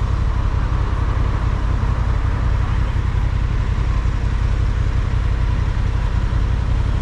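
2024 Honda CB750A Hornet's parallel-twin engine idling steadily at a standstill, with city traffic running around it.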